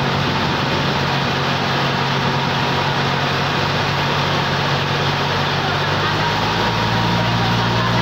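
Boat engine running steadily, with a loud rush of wind and water over it; the engine note dips slightly in pitch near the end.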